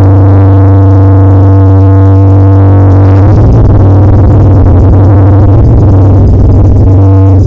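Very loud, bass-heavy electronic music blasted through a competition sound system, dominated by a steady deep bass tone. The low end turns rougher and more distorted from about three seconds in until near the end.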